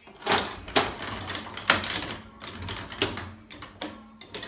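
Whiffle Zip electromagnetic table game in play: a run of irregular clacks, about one every half-second to second, as the players work its push button and handle and the steel ball is snapped about the playfield. A low hum comes and goes underneath while the coils are energized.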